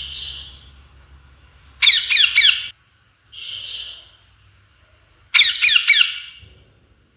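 A parrot squawking: two loud runs of quick, harsh squawks, one about two seconds in and another about five and a half seconds in, with softer, breathier calls between them.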